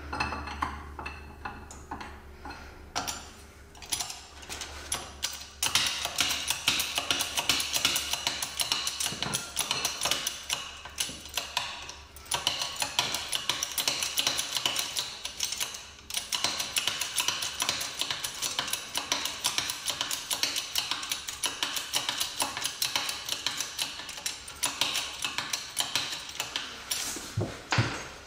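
Ratchet clicking rapidly in long runs, with a couple of brief pauses, as a threaded puller is wound in against the ball joint.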